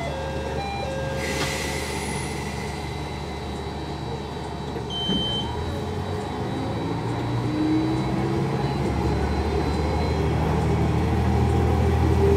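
Diesel railcar engine idling, then revving up and getting louder through the second half as the train pulls away. A short high beep sounds about five seconds in.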